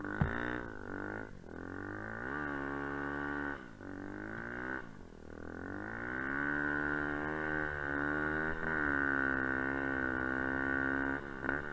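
Enduro dirt bike engine revving up and down through the gears while riding, with several brief drops in revs, then holding steadier, higher revs for the second half. A sharp knock sounds just after the start.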